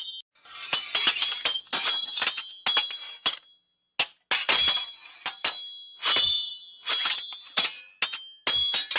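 Sword blades clashing again and again: a quick, irregular run of sharp metallic clangs, each ringing briefly, with a short pause a little before halfway.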